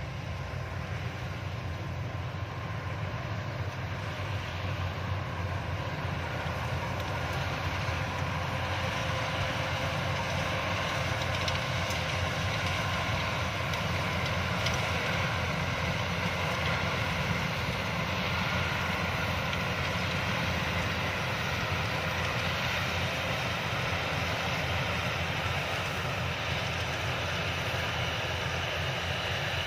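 Yanmar YH-850 rice combine harvester running steadily, its engine and threshing machinery making a constant drone.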